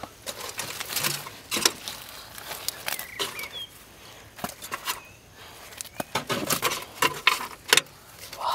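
Irregular clicks, taps and rattles from hands handling the mud-caked metal computer case and its wiring, with a few short, faint high chirps between them.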